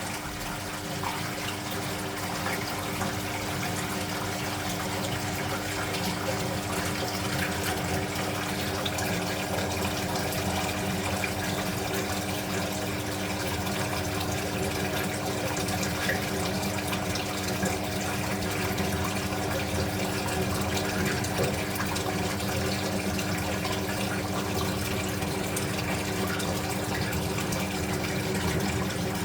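Speed Queen top-loading washing machine filling its tub with water: a steady rush of inflowing water over a constant hum, growing slightly louder over the first few seconds.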